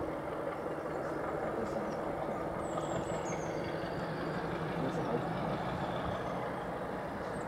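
Steady engine rumble of a BR Class 33 diesel locomotive, heard before it comes into view, with a few faint high chirps a few seconds in.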